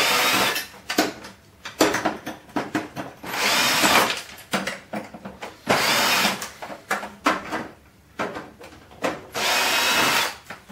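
Power drill/driver backing screws out of a photocopier's casing, running in several short bursts of about a second each, with light clatter of parts and screws in between.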